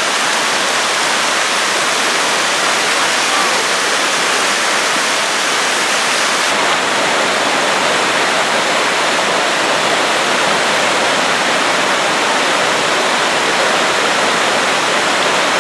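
Loud, steady rush of a waterfall pouring over rock, with a little less hiss from about six seconds in as the sound shifts to smaller cascades.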